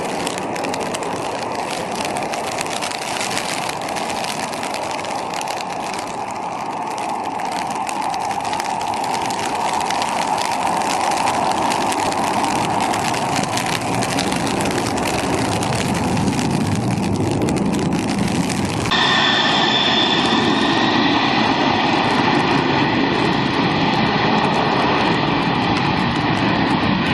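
Jet airliner engines, a steady loud rush. About two-thirds of the way through it cuts abruptly to another jet sound with steady high-pitched whining tones over the rush.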